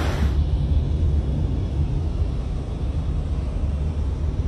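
Steady low rumble of a car heard from inside its cabin, the engine and cabin drone with little high sound above it.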